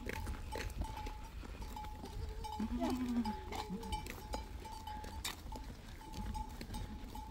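A herd of goats walking along a road, with bells on the goats ringing in short repeated tinkles and scattered clicks of hooves. There is a short call about three seconds in.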